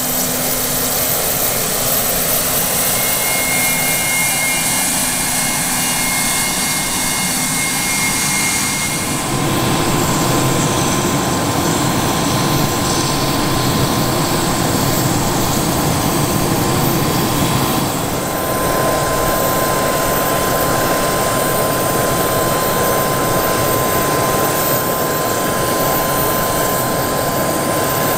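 Embraer Praetor 600's two Honeywell HTF7500E turbofan engines running on the ground: a steady, loud jet rush with a constant high whine. The sound changes abruptly twice, about nine and eighteen seconds in.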